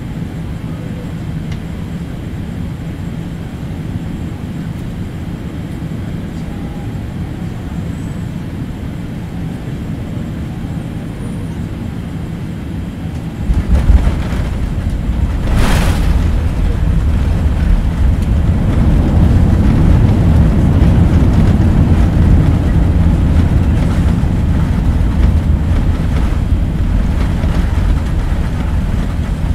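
Cabin noise of a Boeing 787-8 with Rolls-Royce Trent 1000 engines landing: a steady engine and airflow hum on final approach, then touchdown about halfway through, with a sudden jump to a loud rumble of wheels on the runway. A brief sharp noise follows a couple of seconds later, and the rumble swells further as the plane rolls out.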